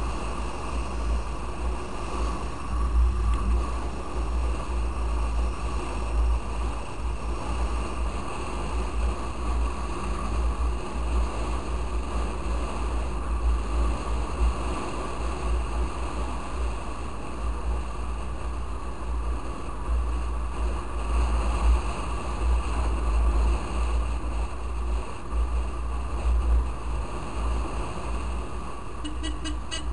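Wind buffeting the microphone of a moving motorcycle, a heavy rumble that rises and falls, with engine and road noise underneath.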